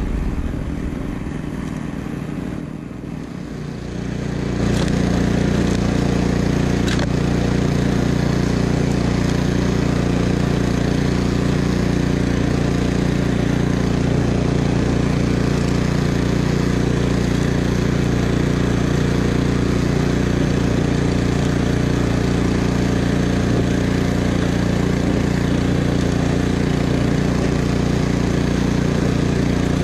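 Troy-Bilt Vortex 2890 three-stage snowblower engine running steadily under load while clearing snow. It comes in louder about four seconds in and then holds one even pitch.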